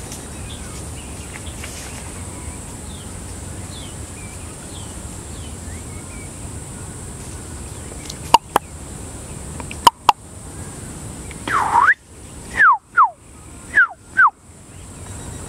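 Wild birds calling in trees. Faint high chirps at first, then two pairs of sharp clicks, then a series of five loud whistled notes, each sliding down in pitch.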